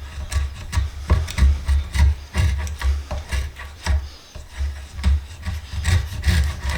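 Stanley spokeshave shaving a wooden screwdriver handle in quick, uneven strokes, about two a second. Each pass is a short scrape with a dull knock. The owner feels the blade could be a little sharper.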